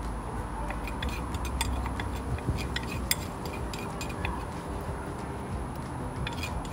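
A metal spoon clicking and scraping against a bowl and the rim of a cooking pot as cooked sorrel leaves (ngai ngai) are scooped into tomato sauce: light, irregular clicks.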